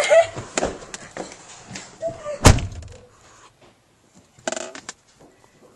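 Small knocks and clicks, then a door slams shut once, loudly, about two and a half seconds in. A short scuffing rustle follows near the end.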